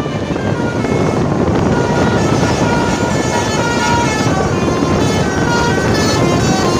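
Multi-tone telolet air horn on a tour bus playing a quick melody of short notes that step up and down in pitch, busier from about two seconds in, over loud steady noise.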